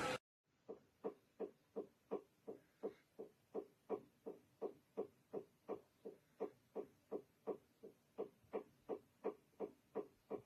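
A steady hiss cuts off abruptly right at the start, and about a second later a run of evenly spaced sharp clicks begins, a little under three a second, keeping an even pace to the end.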